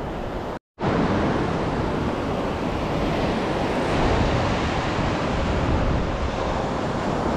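Surf breaking and washing up a sandy beach in a steady rush, with wind blowing across the microphone.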